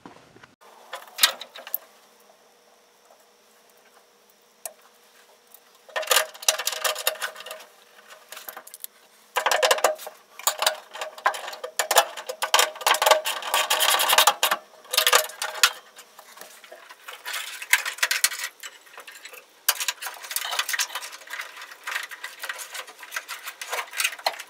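Rustling wires and clicking, rattling plastic connectors as a wiring harness is handled and routed under a truck's dash. A few isolated clicks at first, then long stretches of dense clicking and rattling from about six seconds in.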